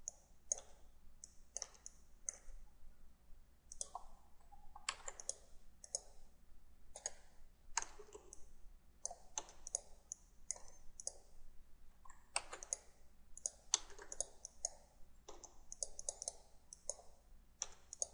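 Computer mouse buttons clicking, faint and irregular, a couple of clicks a second with some quick double clicks.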